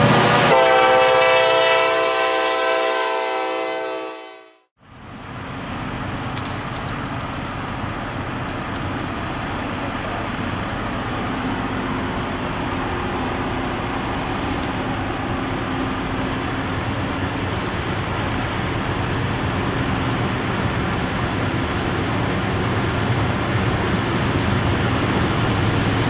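A diesel freight locomotive's multi-note air horn sounding a chord, fading out about four seconds in. Then a steady rumble of outdoor background noise that slowly grows louder.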